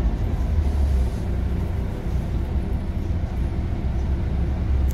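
Scania OmniCity bus under way, heard from inside the passenger saloon: a steady low drivetrain rumble with a faint steady whine from its ZF automatic gearbox.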